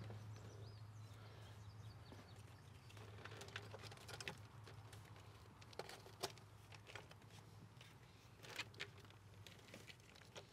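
Faint scattered rustles and small clicks of a plastic-sheathed wiring harness and its connectors being wiggled by hand, over a low steady hum.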